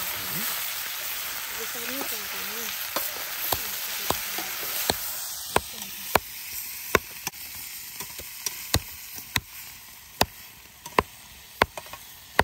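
Chicken frying in a pan, sizzling, with the sizzle thinning out about halfway through. Sharp, irregular taps of stirring against the pan come every half second to a second from a few seconds in, and they are the loudest sounds.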